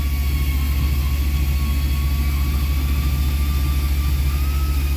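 A steady low mechanical hum with a faint thin whine above it, unchanging throughout.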